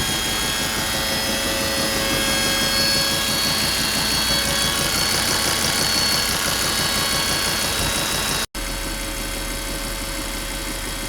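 A Volvo car running at idle with a steady, high-pitched buzz, which seems to come from the driver's side. The sound drops out for an instant about eight and a half seconds in, then carries on slightly quieter.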